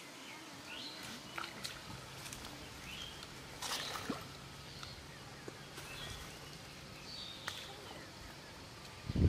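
Small birds chirping over water sloshing as a hooked fish is hauled to the bank on a hand line, with a splash about four seconds in and a low thump at the very end.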